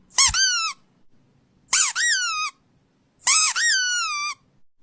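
A squeaky toy squeaking three times in a row, each squeak sliding up and then down in pitch, the last one the longest.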